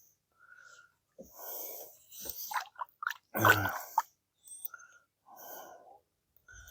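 A person breathing hard near the microphone in short, irregular puffs and snorts, with some rustling in between.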